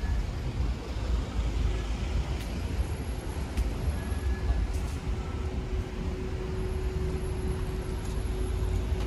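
City street traffic: a steady low rumble of passing cars and buses, with a steady hum joining about halfway through.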